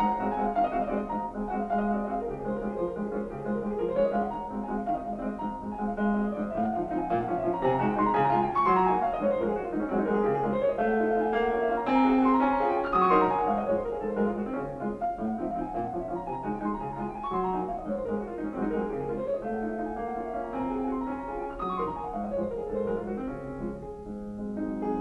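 Piano music with repeated rising and falling runs of notes over a held low note.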